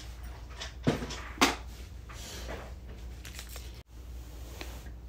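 Handling noises of tools and parts on a table: two light knocks about a second in, then soft rustling and shuffling, over a faint steady low hum.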